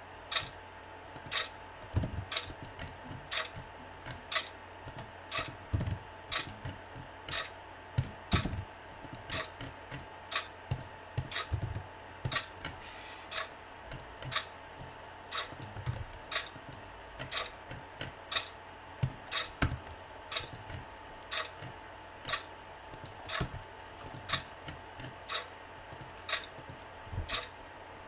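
Computer keyboard typing: unhurried, irregular keystrokes, about one to three a second.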